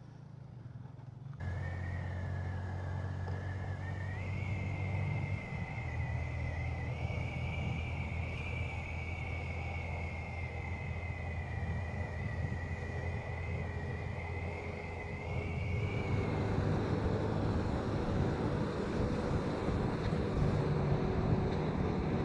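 Wind rush on the microphone of a moving motorcycle, over the low steady drone of engine and tyres on the highway. A thin high whine runs through the middle part, and the rush grows a little louder in the last few seconds.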